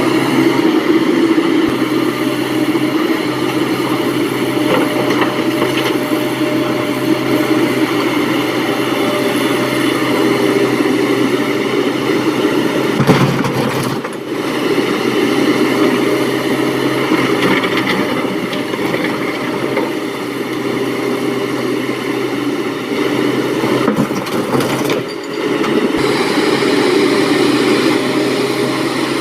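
Heavy diesel engines of an excavator and dump truck running steadily, with short breaks in the sound about halfway through and again near the end.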